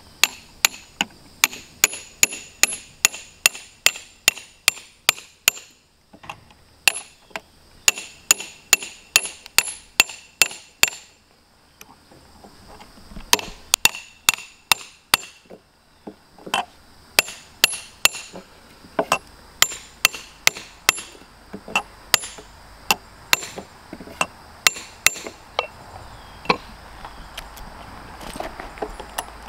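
Hammer striking the top of a steel rod set in a bolt hole through a pressure-treated 6x6 sill plate: sharp metal-on-metal blows with a ringing tone, in quick runs of about three a second broken by short pauses. The blows come sparser and lighter near the end.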